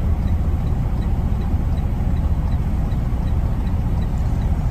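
Truck engine idling, a steady low rumble heard from inside the cab, with a faint high tick repeating about four times a second.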